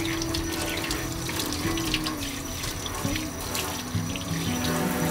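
Kitchen spray faucet running water over a raw trout fillet held in the hands, splashing into a stainless-steel sink. Background music with held notes plays underneath.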